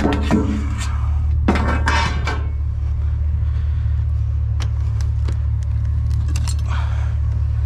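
Metal scrap clattering and clinking as it is handled: a rattling cluster of knocks in the first couple of seconds, then scattered light clinks. Under it runs the steady low hum of an idling pickup truck engine.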